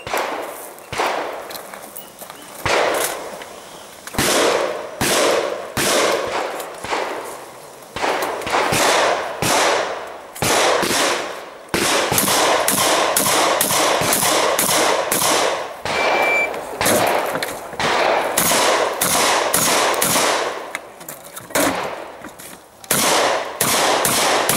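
Shotgun fired over and over in fast strings of sharp, echoing shots, with short pauses between the strings.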